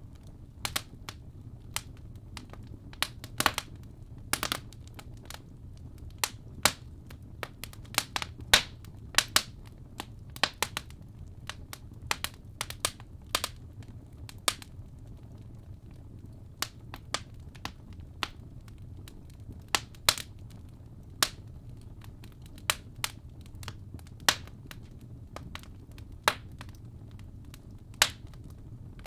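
Wood fire in a fireplace crackling, with irregular sharp pops and snaps several times a second over a low steady rumble of the burning fire.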